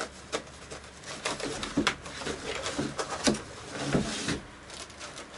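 White packaging wrap rustling and crinkling in irregular bursts as it is handled and pulled out of a cardboard guitar box.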